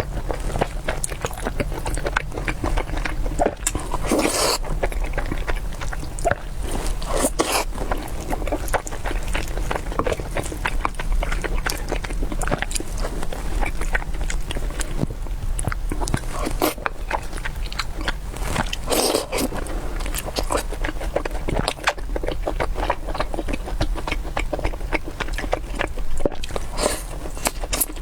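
A person chewing and biting food close to the microphone, a dense, irregular run of small wet clicks and smacks over a steady low hum.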